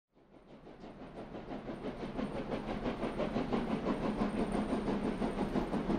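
A train running with a fast, even rhythmic chugging over a hiss, fading in from silence and growing louder over the first few seconds.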